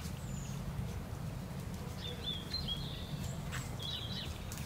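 Small birds chirping in short bursts, about two seconds in and again near the end, over a steady low rumble.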